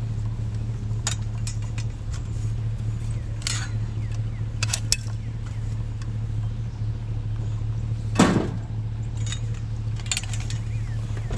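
Truck driving: a steady low engine and road drone, with scattered small rattles and clicks and a sharper knock about eight seconds in.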